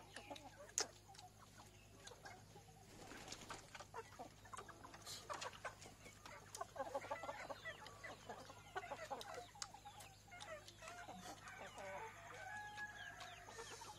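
Chickens clucking, a busy run of short calls around the middle, with scattered faint clicks.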